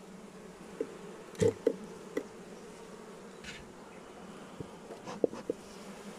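Honey bee colony humming steadily in an open hive box, with several short knocks partway through, loudest about a second and a half in and again near five seconds.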